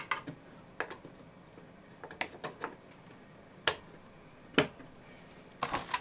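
Sharp plastic clicks, about seven scattered single ones, as a DDR server memory module is pressed into a motherboard DIMM slot and the slot's retention clips snap shut. Near the end, a plastic bag crinkles as the next module is pulled out.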